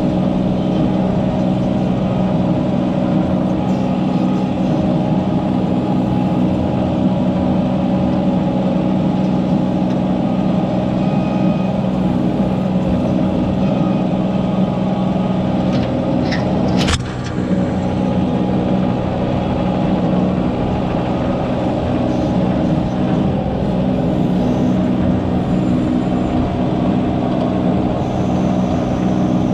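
Mini excavator's diesel engine running steadily under the operator's control, with one sharp click about halfway through.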